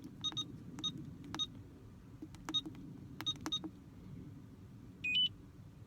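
Irregular short electronic clicks and ticks, then about five seconds in a short two-note beep that steps up in pitch.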